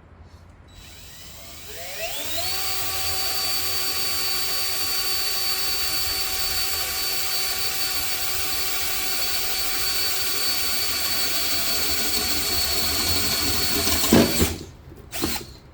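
An electric power tool's motor spins up about two seconds in with a rising whine, runs at a steady high pitch for about twelve seconds, then stops abruptly with a knock near the end.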